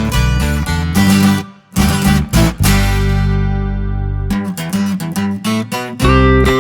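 Background music led by strummed acoustic guitar over a bass line, with a brief break about one and a half seconds in and a held chord in the middle.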